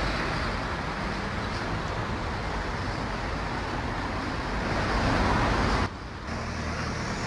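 Steady engine and traffic-like rumble with a constant low hum, dropping out briefly about six seconds in.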